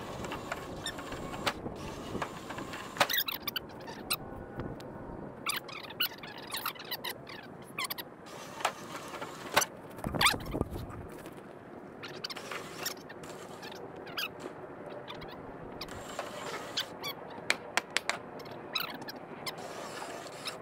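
Generac 25 kW standby generator being dragged across grass on PVC pipe rollers by a winch. Irregular clicks, squeaks and knocks from the rollers and the generator's base, over a steady hum.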